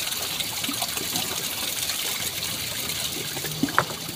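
Steady trickling of running water, with two short, sharp sounds near the end.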